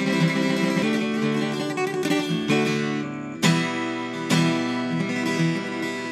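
Background music on a strummed acoustic guitar, with chords struck about once a second.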